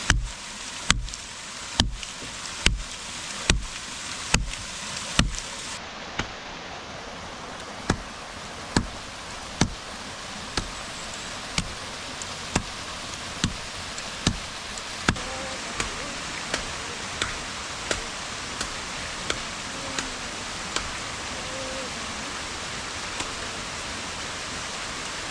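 Rhythmic chopping with a blade at fodder branches, about one stroke a second, over a steady background rush. The first few strokes land as heavy thuds; the rest are lighter, sharp knocks that die away near the end.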